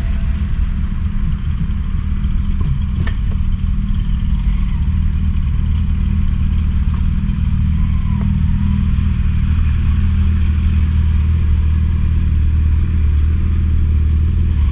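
Motorcycle engine running steadily under way with a low, even drone that grows slightly louder through the stretch.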